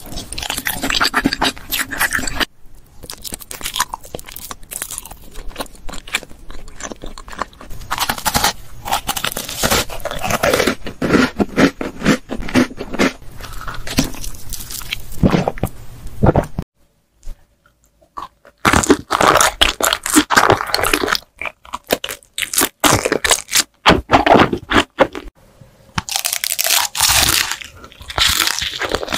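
Close-miked ASMR eating: repeated crunchy bites into hard sugar-glazed candy, then chewing, in clusters of sharp crackling crunches. The sound stops for about two seconds a little past halfway, then the biting and crunching start again.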